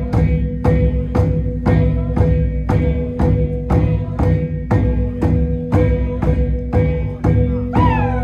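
Folk dance music: a drum struck on a steady beat about twice a second over a sustained ringing tone. A falling cry comes near the end.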